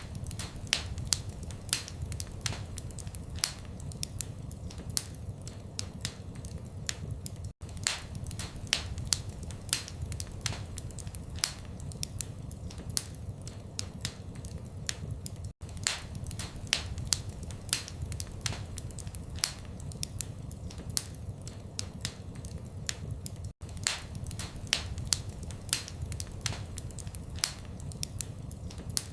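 Wood fire crackling in a fireplace: frequent sharp pops and snaps over a low rumble of flame. The same eight-second stretch repeats as a loop, with a split-second gap at each join.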